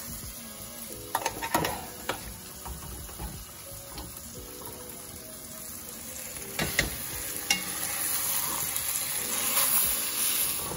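Pork roast pieces sizzling as they sear in hot oil in a cast-iron Dutch oven, a steady hiss. Metal tongs click and knock against the pot and pan a few times, about a second in and again around the middle.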